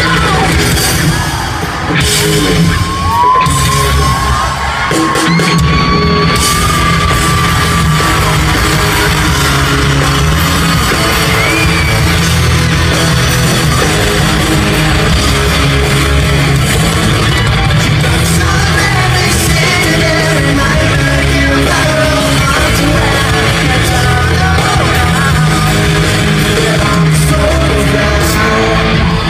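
Pop-rock band playing live through an arena PA, electric guitars and drums, with the crowd yelling and singing along, heard from within the crowd. A long high held note, rising at its start, rings out from about three seconds in for some five seconds.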